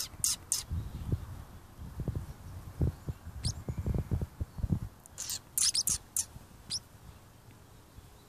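Turquoise Pacific parrotlets giving short, high, squeaky chirps: a few right at the start, one about three and a half seconds in, and a quick flurry a little after five seconds. Soft low thumps come in between.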